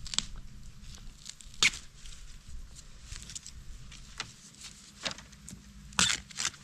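Scattered sharp snaps and crackles of bamboo stems and dry leaf litter being handled while wild pai ruak (Thyrsostachys siamensis) shoots are harvested at the base of a clump. The loudest snaps come about a second and a half in and again near the end.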